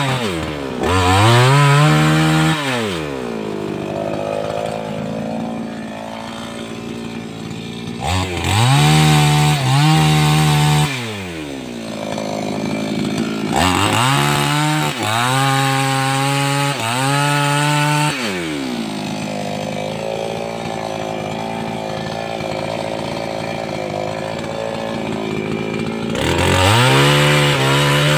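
588X gasoline chainsaw cutting wood: the engine revs up to full throttle in four bursts of a few seconds each, falling back to a lower, quieter running speed between them.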